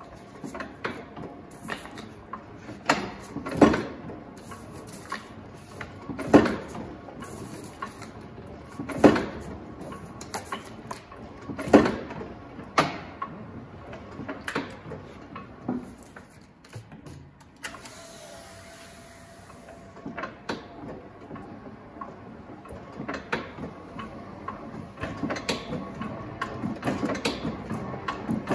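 Chandler & Price clamshell platen press running as a die cutter, giving a heavy knock each cycle, the strongest four a little under three seconds apart, with lighter clanks between. After a quieter spell about two-thirds of the way in, lighter, quicker clicking and rattling builds toward the end.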